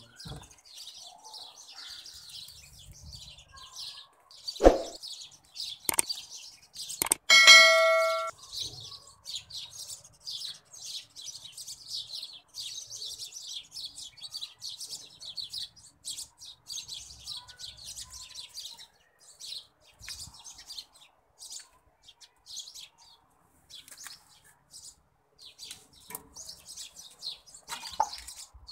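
Many small birds chirping all through, a thick stream of quick, high chirps. A thud comes about five seconds in, and a bell-like ding rings for about a second a little later. The ding is the loudest sound.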